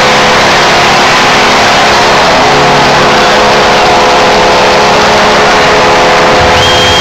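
Hockey arena crowd cheering loudly for a goal, with the arena's goal horn sounding over it as a steady low chord. A high steady tone comes in near the end.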